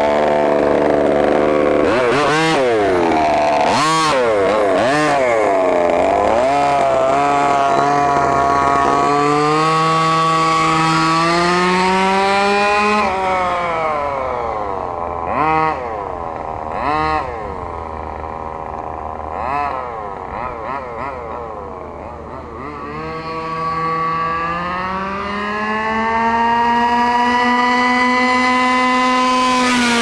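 1/5-scale gas RC monster truck's small two-stroke engine revving. It blips the throttle up and down several times, then makes long rising pulls that level off at steady high revs. It grows fainter through the middle as the truck runs away, and is loud again near the end.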